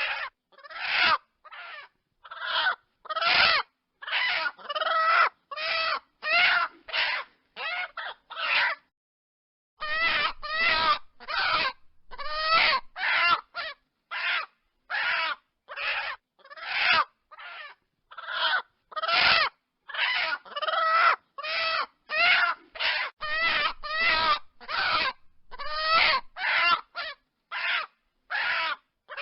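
Chicken clucking: a rapid run of short calls, about two a second, with a brief pause about nine seconds in.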